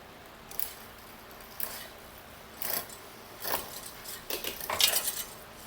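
Short metallic clinks and rattles of tools or bike parts being handled, coming every second or so at irregular spacing, with a busier, louder cluster near the end.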